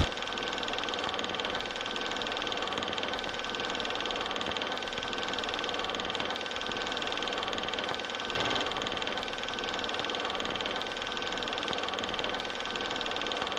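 Steady mechanical hum with hiss, a few constant tones held over it, and a brief louder blip about eight and a half seconds in.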